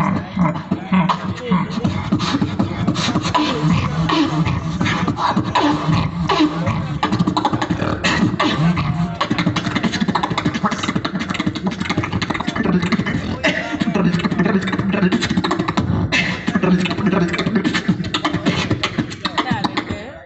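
Beatboxer performing into a handheld microphone over a PA system: a fast, unbroken stream of mouth-made kick, snare and hi-hat hits layered over a hummed low line.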